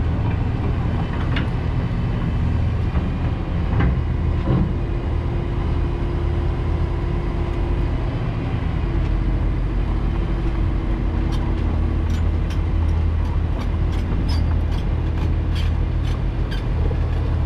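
Diesel engine running steadily, a low even drone, with a quick run of sharp ticks through the second half.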